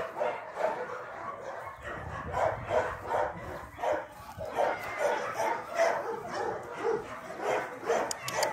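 A dog yapping over and over in short, quick barks, about two to three a second.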